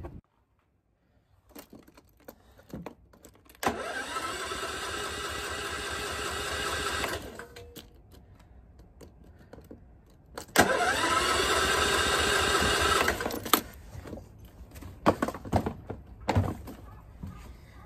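SF-2600F inverter generator's electric starter cranking the engine twice, about three and a half seconds and then about three seconds, each run opening with a short rising whine and then holding steady; the engine does not start. Scattered clicks and knocks of handling come before, between and after.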